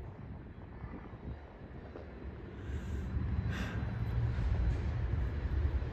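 Low, steady engine rumble of a rail vehicle approaching on the track, growing louder about three seconds in.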